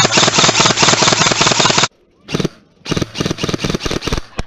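Airsoft electric gun firing full-auto: a long burst that stops about two seconds in, a short burst, then another burst of about a second, each a fast even rattle of shots.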